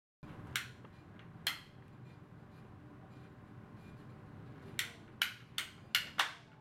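Handheld ratcheting PP-R pipe cutter clicking as it is squeezed through a heat-fused PP-R pipe-and-fitting joint: two sharp clicks in the first second and a half, then a quicker run of about five clicks, two to three a second, near the end.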